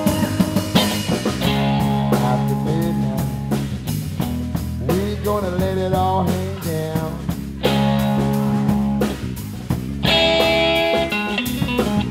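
Live blues band playing an instrumental passage: electric guitar over electric bass and drum kit, with some bent notes in the middle.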